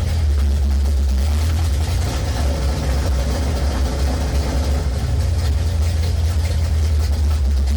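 1970 Plymouth Cuda's 440 V8 idling steadily with a loud, even low rumble, just after being started.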